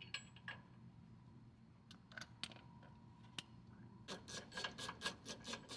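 A few faint scattered metallic clicks, then about four seconds in a rapid, dense jingling rattle of steel chain links being handled: the chains used as limiting straps on the track kit.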